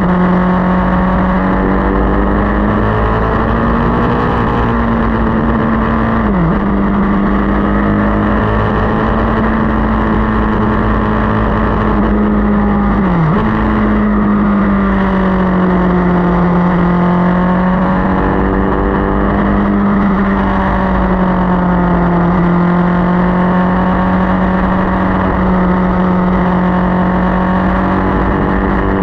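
Motorcycle engine running at steady road speed over a continuous rushing noise. The engine note wanders gently and dips sharply and briefly twice, about six and thirteen seconds in.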